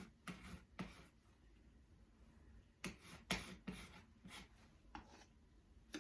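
A series of short, faint scrapes of a putty knife working sheetrock mud (joint compound), packing it into holes in the drywall and spreading it over them.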